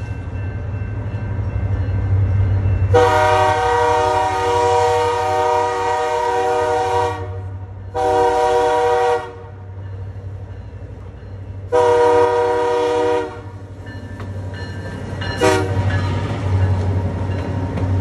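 Canadian Pacific diesel locomotives approaching and passing, their multi-note air horn sounding a series of blasts: one long blast of about four seconds, two shorter ones, then a brief toot. Under the horn the diesel engines run with a steady low rumble that grows louder as the locomotives come alongside near the end.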